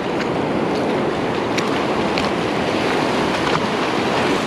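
Ocean surf washing in over a shallow sandy beach, a steady rush of breaking waves and foam, with wind buffeting the microphone.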